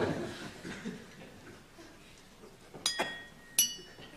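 Studio audience laughter dying away, then two short ringing clinks of tableware, about two-thirds of a second apart.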